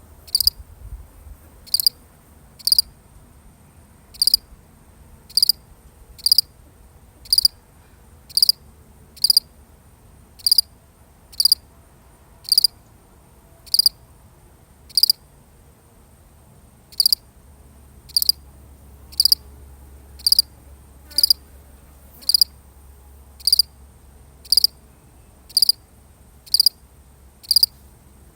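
A single field cricket chirping: short, evenly spaced chirps about one a second, with one slightly longer pause about halfway through.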